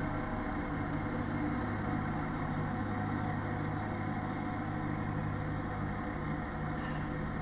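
Parked delivery lorry idling with its refrigeration unit running: a steady, low mechanical drone that keeps an even level throughout.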